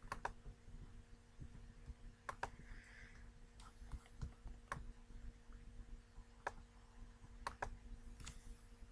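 Computer mouse buttons clicking: sharp single clicks every second or two, some in quick pairs, over a faint steady electrical hum.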